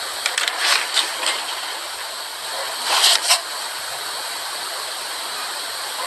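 Steady hiss, with short crackling rustles about half a second to a second in and two louder crackles about three seconds in.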